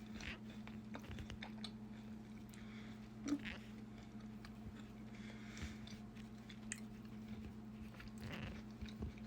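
Faint chewing and biting of a soft iced sugar cookie, with small wet mouth clicks and one louder bite about three seconds in, over a steady low hum.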